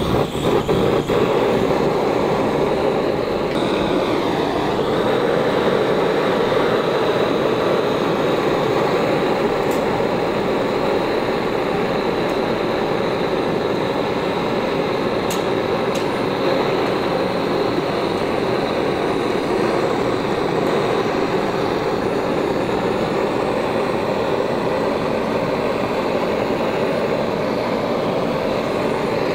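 Handheld gas torch burning steadily, its flame heating thin steel rose leaves before they are bent.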